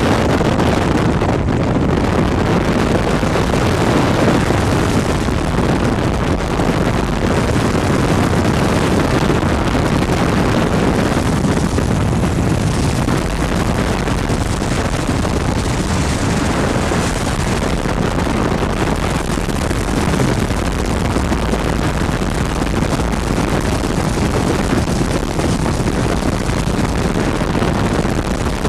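Ultralight aircraft in flight: steady engine drone mixed with heavy wind rushing over the microphone, unchanging throughout.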